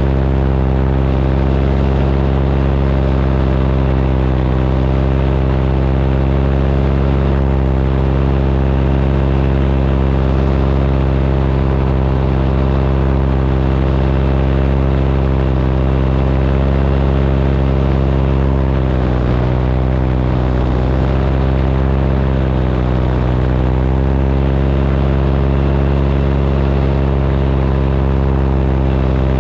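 Paramotor engine and propeller running steadily at cruise in flight. About two-thirds of the way through, the engine speed dips briefly twice, then comes back up.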